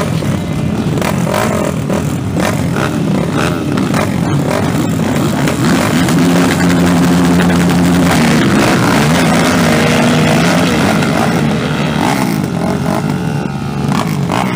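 Several racing ATV engines, among them a 2009 Yamaha YFZ450R, revving on a motocross start line and held at high revs, then the quads launch off the line and the engine sound drops away near the end.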